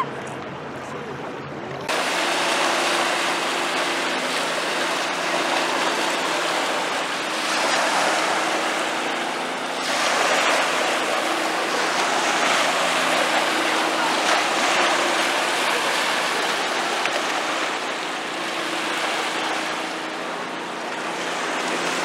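Small waves lapping and breaking on a sandy river shore, a steady rushing wash that swells and eases, starting abruptly about two seconds in. A faint steady low hum runs underneath.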